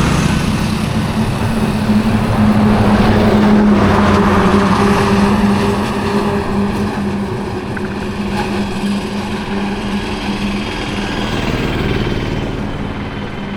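Auto rickshaw's small engine passing close, its rattly note loudest a few seconds in and then fading away, over steady road traffic.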